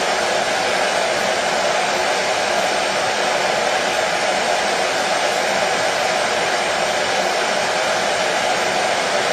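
Hair dryer running steadily: an even, unchanging whooshing noise with no breaks.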